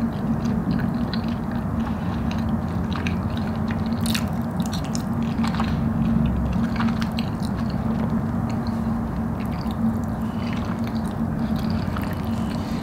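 A person chewing and biting a mouthful of cheesy Alfredo fries, with short clicks now and then. A steady low hum runs underneath.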